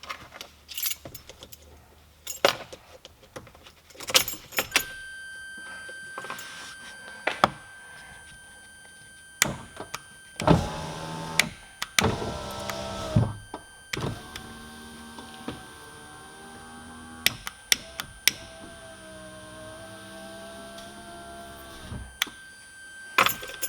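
Opel Corsa C electric window motor running three times, driving the door glass, as the newly fitted window switch is tested; the switch clicks before each run. Each run is a steady motor whine lasting about three to four seconds, and all three runs are normal, showing the new switch works.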